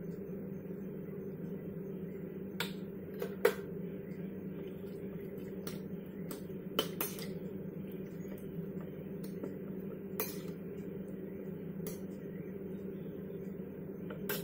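A utensil clinking and tapping against a glass mixing bowl as raw chicken is stirred with spices and yogurt: a handful of sharp, irregular clinks, the loudest about three and a half seconds in, over a steady low hum.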